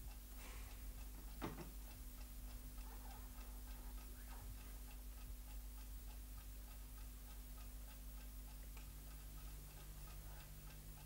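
A clock ticking steadily and faintly in a quiet room, under a low steady hum. One soft knock about a second and a half in.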